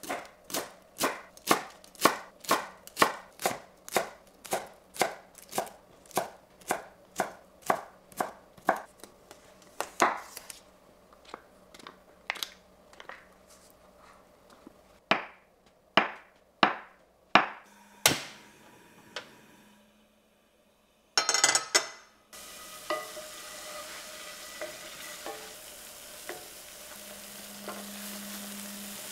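Chef's knife chopping garlic chives on a wooden cutting board, about two to three quick strokes a second for around ten seconds. Then a handful of separate knife strikes as a tube of soft tofu is cut on the board. After a brief burst of noise, sliced soft tofu sizzles steadily in a dry non-stick frying pan.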